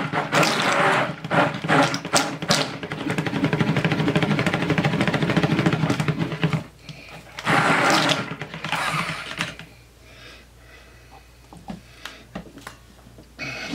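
Stick blender running in cold-process soap batter: one long run of about six and a half seconds, then a shorter burst about a second later and a weaker one after it, followed by a few light knocks.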